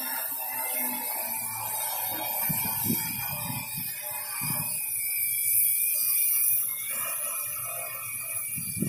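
Quadcopter drone hovering, its motors and propellers giving a steady whine under a hiss that swells briefly just past the middle.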